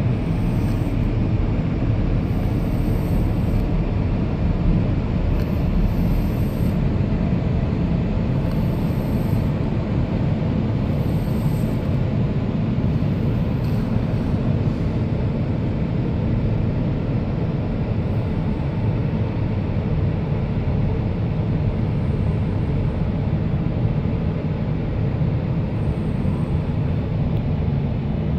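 Automatic car wash running: a steady low rumble with a faint hiss high up that comes back every few seconds.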